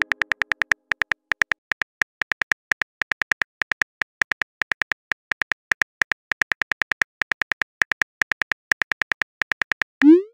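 Rapid clicks of a simulated phone keyboard as a text message is typed, about six a second with brief pauses. They end with a short rising swoosh as the message is sent.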